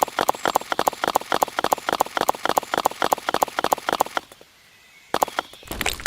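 Rapid, even clip-clop clopping, about five knocks a second, that stops about four seconds in. A single knock follows about a second later, and a short noisy rush comes near the end.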